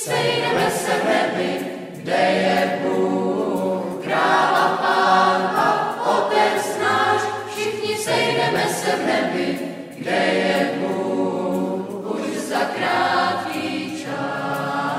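A choir singing with music behind it, in phrases that break about every two seconds.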